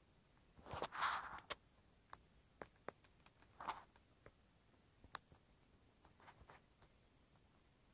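Quiet stirrings of a person lying in a mesh hammock: a brief rustle about a second in, a smaller one near four seconds, and scattered faint clicks, against near silence.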